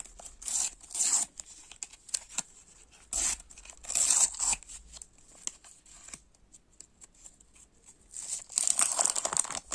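Panini sticker packet being handled and torn open: bursts of tearing and crinkling wrapper with sharp little clicks, loudest about four seconds in and again near the end.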